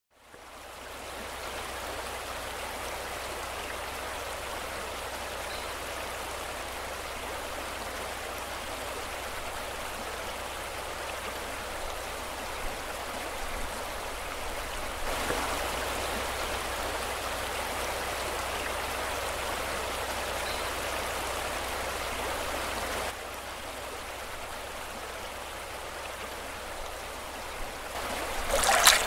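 Rushing river water running over rocks in a steady hiss. It fades in over the first second or so, gets louder about halfway through, and drops back a little about two-thirds of the way in.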